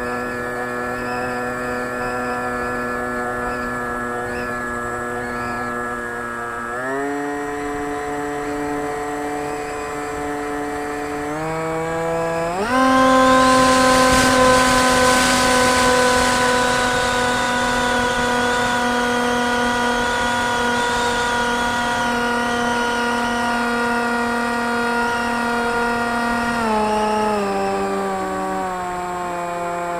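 Radio-controlled flying wing's motor and propeller heard from on board: a steady whine that steps up in pitch about seven seconds in and again around thirteen seconds in as the throttle is opened. A loud rush of wind joins it at the second step, and the pitch steps back down near the end.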